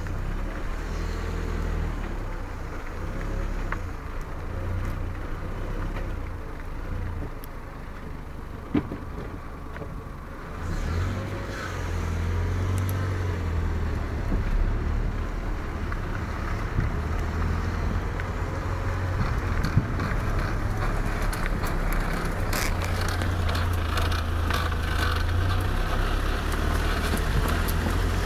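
Ford Fiesta 1.4 Zetec on the move, a steady low rumble of engine and tyres with a faint repeating sweep from the front brakes, the noise that appeared after new brake discs were fitted. It grows louder from about ten seconds in.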